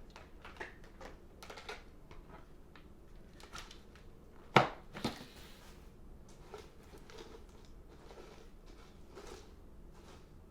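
Scattered small clicks and rustles of things being handled, with one sharp knock and a smaller one about halfway through; no vacuum motor running.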